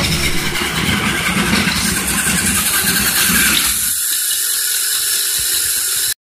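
Battery-driven Plarail toy trains running on plastic track: a motor whirr with the rattle of the cars on the rails. The low rumble drops out about four seconds in, leaving a higher hiss, and the sound cuts off abruptly near the end.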